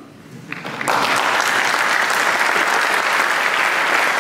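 Audience applauding: a few scattered claps, then full, steady applause from about a second in.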